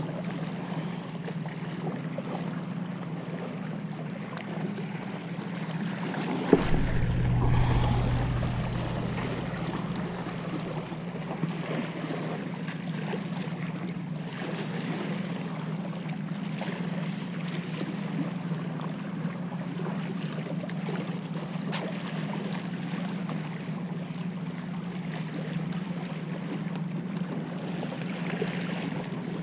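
Small sea waves washing and splashing against shore rocks, with wind buffeting the microphone, in a strong gust about six and a half seconds in.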